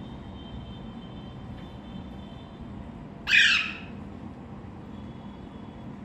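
A single loud, harsh squawk from a green parakeet about halfway through, lasting about half a second, over a steady low background hum.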